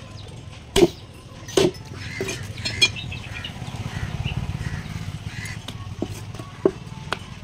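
Heavy curved knife chopping through katla fish into a wooden stump chopping block: sharp single chops, four in the first three seconds and two more near the end. A low hum swells and fades in the middle, between the chops.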